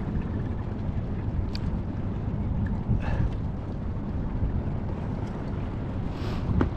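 Wind rumbling steadily on an action camera's microphone on open water, with a short knock about six and a half seconds in.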